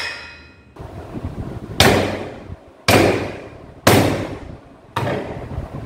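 A 4 kg steel digging bar rammed down four times, about a second apart, onto a hammer standing head-down on a drink can: heavy metal-on-metal knocks that crush the can. The ring of a hammer blow on the bar fades in the first moment.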